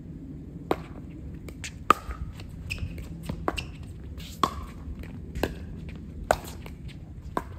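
Pickleball paddles striking a hard plastic ball back and forth in a rally. A sharp pop comes about once a second, several with a short ringing ping, and softer taps and ticks fall between them.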